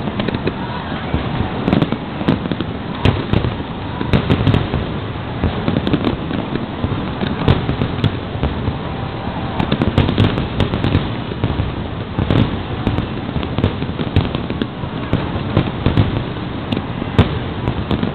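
Large aerial fireworks display going off in a continuous barrage: overlapping booms and sharp cracks, one burst after another with no pause.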